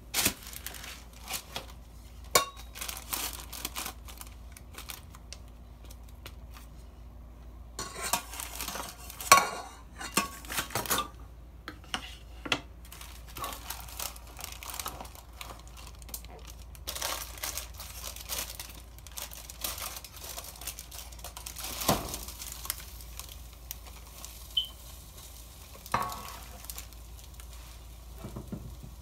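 Baking paper and plastic wrap crinkling and rustling, with scattered sharp knocks and clinks of a metal pizza pan as a grilled cake is handled.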